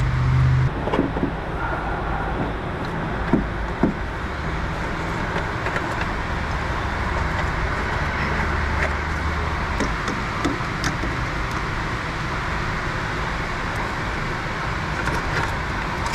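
Steady rushing background noise in a repair shop, with a few light clicks and knocks of metal parts being handled under the car, two of them sharper about three to four seconds in.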